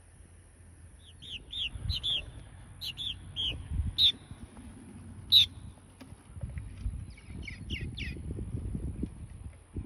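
Purple martins chirping: a quick run of short, curved chirps, two sharper calls around the middle, and another quick cluster near the end, over a low rumble.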